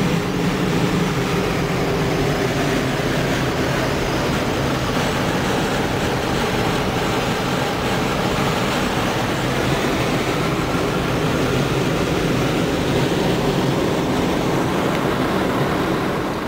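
Steady driving noise of a 1956 Chevrolet Bel Air cruising at highway speed, heard from inside the cabin.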